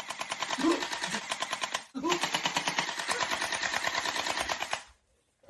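Fully automatic Nerf blaster firing in two long rapid bursts, a fast even clatter of shots with a brief break between them, cutting off sharply near the end.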